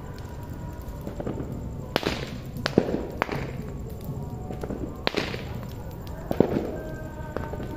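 Large bonfire burning with several sharp, loud pops and cracks as the burning fuel bursts and throws up showers of sparks. There is a cluster of cracks about two to three seconds in, then single ones at about five and six and a half seconds.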